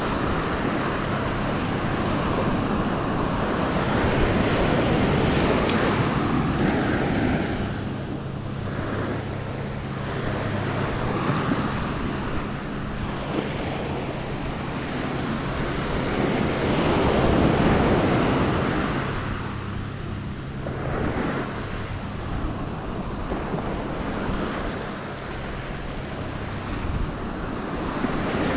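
Small surf breaking and washing up a sandy shore, swelling and easing every several seconds, with wind buffeting the microphone.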